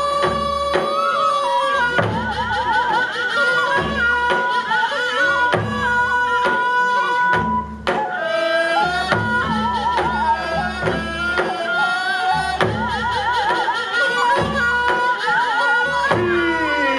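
Live Korean traditional music accompanying a lion dance: a melody of held, wavering notes over steady drum strokes.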